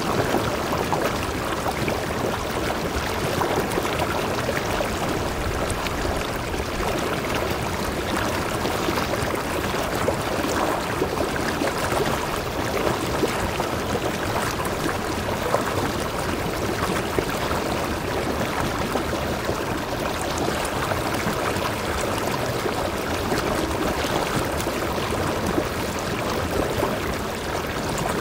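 Mountain stream tumbling over boulders in a small cascade into a rock pool: a steady rush and splash of water.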